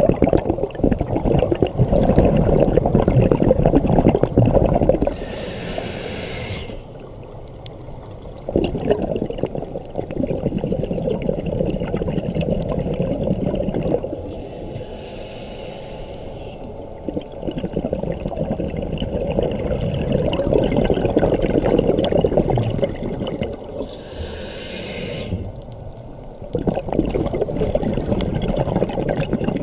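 A scuba diver breathing through a regulator underwater: long bubbly stretches of exhaled air, each several seconds long, alternate with a short high hiss as the regulator delivers air on each inhale, three breaths in about nine-second cycles.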